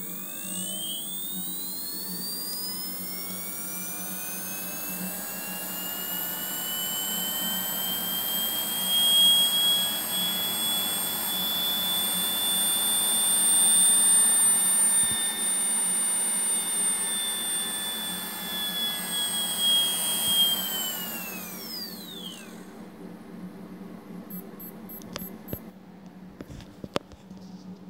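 Freshly rewired brushless outrunner motor spinning up with a rising whine, holding a steady high whine, then winding down with a falling whine a little over 20 seconds in. A few light clicks follow.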